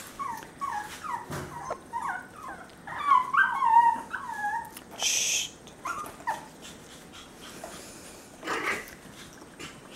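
Puppies whimpering and yipping: a quick run of short, high, wavering whines that grows loudest around the middle, then a brief hissing noise and a couple more short whines.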